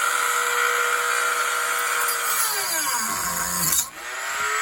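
Dremel rotary tool running at a high steady whine while cutting into a pine block; about two and a half seconds in its pitch sinks steeply as the bit bogs down in the wood, nearly stalls, then spins back up near the end.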